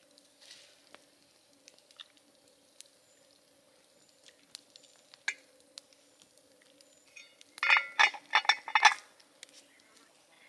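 Cooking pot at a campfire being handled: faint scattered ticks, then about seven and a half seconds in a quick run of clinks and clatters, the loudest sound.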